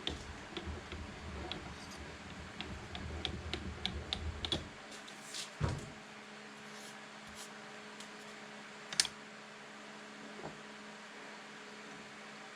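Light metallic clicks and clinks of steel machinist's parallels being handled and set into a mill vise, in a run of small taps over the first five seconds, then a thump and a single sharp click about nine seconds in. A steady low hum lies underneath.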